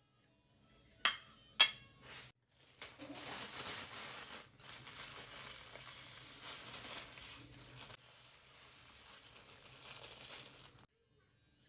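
Two sharp clinks about a second apart as a ceramic plate is set down on a granite counter. This is followed by a steady rustling hiss of small psyllium seeds pouring from a plastic bag onto the plate, with crinkling of the bag, which stops shortly before the end.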